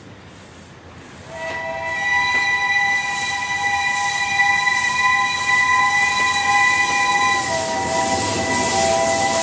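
Steam locomotive's whistle sounding one long blast, a chord of several tones at once, that starts about a second in and shifts slightly in pitch near the end. Under it a rising hiss of escaping steam as the locomotive moves off.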